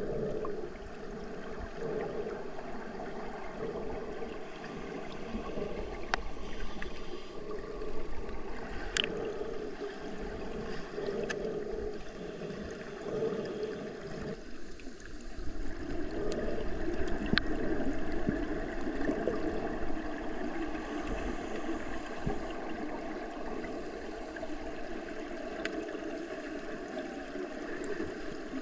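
Water sloshing and gurgling continuously, with a few faint clicks.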